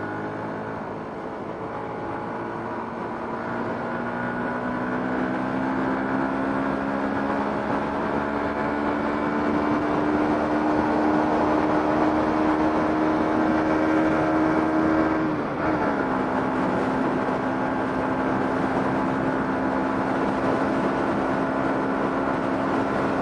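Vehicle engine running under way, with steady road noise. Its pitch climbs slowly for about ten seconds as the vehicle gathers speed, dips abruptly about fifteen seconds in, then holds steady.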